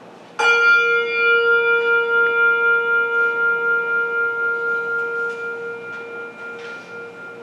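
A bell struck once, tolled in memory of the dead after a name is read, then ringing on and slowly fading with a steady wavering.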